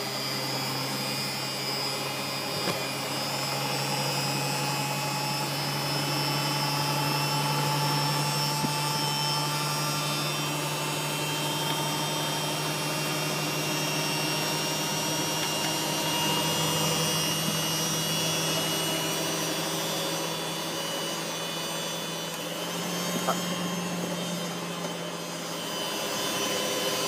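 Candy GODF800 washing machine on a spin cycle with its door open: the motor and drum running steadily with a humming whine, with a few sharp clicks. The pitch steps up slightly about three seconds in and shifts again near the end as the spin speed changes.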